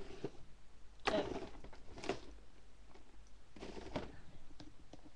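Handling noises as a hot glue gun is reloaded with a glue stick: a few short rustles and scrapes, the loudest about a second in, with faint clicks between.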